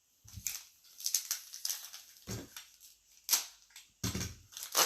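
Trading card packs and cards being handled: foil wrappers crinkling and cards sliding and clicking in irregular short crackles, with a few brief dull thumps.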